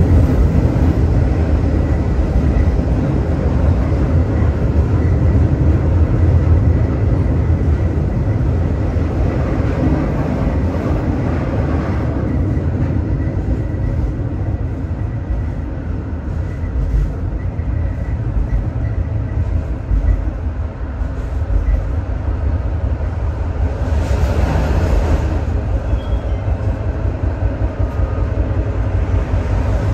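Tram running along its rails, heard from aboard: a steady low rumble, with a faint high whine through the first two thirds and a brief burst of hissing noise about 24 seconds in.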